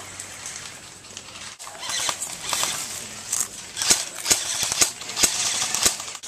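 Airsoft gunfire: irregular sharp cracks over a rustling hiss, starting about two seconds in.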